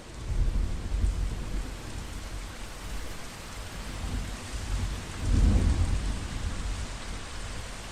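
Steady rain falling, a continuous even hiss. Low rumbles come in about half a second in and again, loudest, around five and a half seconds in.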